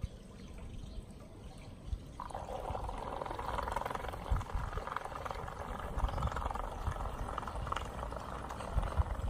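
Zodiac CyclonX 4400 robotic pool cleaner working at the waterline, its pumped water splashing and pouring at the surface; the steady splashing starts suddenly about two seconds in.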